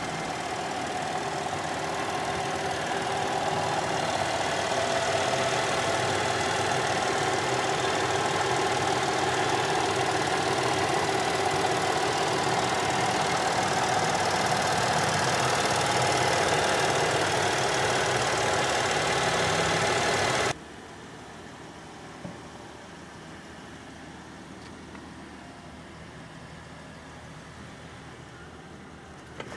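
2014 Chevrolet Traverse's 3.6-litre V6 idling, heard close up under the open hood as a steady hum under a loud, even hiss. It cuts off abruptly about two-thirds of the way through, leaving only faint room tone.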